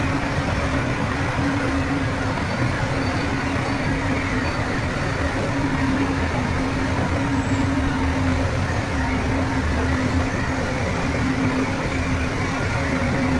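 Heavy diesel earthmoving machinery running steadily, with a steady engine drone whose pitch wavers slightly.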